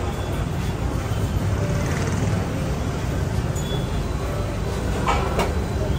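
Busy restaurant's background noise: a steady low rumble with a brief clatter about five seconds in.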